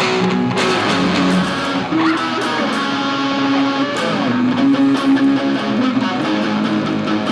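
Guitar music: a melody of held, plucked notes over guitar chords, with a note sliding upward about two seconds in.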